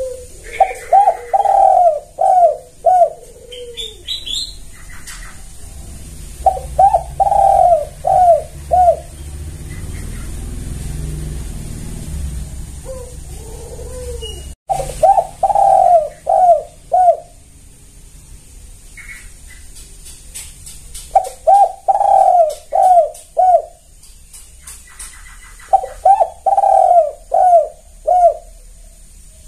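Spotted dove cooing its song in five phrases. Each phrase is a quick run of about five loud, rounded coo notes, with pauses of a few seconds between phrases.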